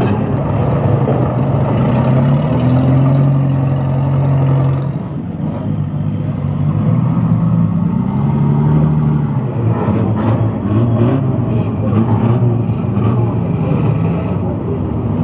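Banger-racing car engines running in the pits, revving up and down now and then. A run of sharp metallic clatters comes in the last few seconds.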